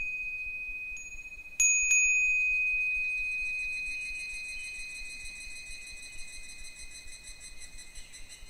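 Japanese furin wind bell ringing: two quick strikes of the clapper about a second and a half in, then a long, slowly fading high ring whose upper tones pulse.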